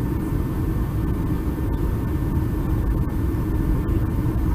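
Boeing 747-400 cabin noise on the landing approach: a steady low rumble of the four engines and the airflow over the wing, heard from a window seat inside the cabin.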